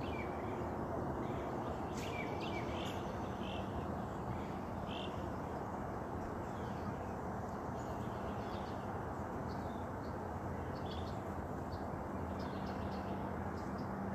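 Wild birds chirping and calling in short, scattered notes over a steady low background rumble.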